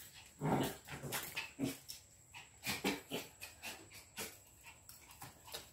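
Two small dogs, a Jack Russell terrier and a Lhasa Apso, fighting, making short growling and whining noises in irregular bursts about a second apart.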